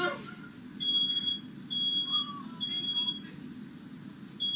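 Smoke alarm beeping, set off by firework smoke in the room: a high steady tone in half-second beeps just under a second apart, three in a row, then a short pause before it starts again near the end.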